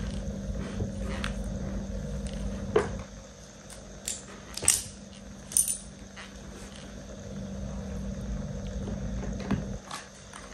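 Small makeup items handled close to the microphone: about five sharp clicks and taps over a low steady hum.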